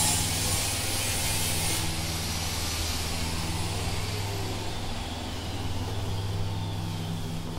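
Steady low machine hum, with a high hiss over it that fades out about two seconds in.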